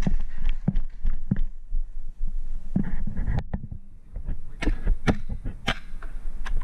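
Footsteps and gear knocking from a paintball player moving over grass and crouching behind cover: an irregular string of thumps and sharp clicks over a steady low rumble.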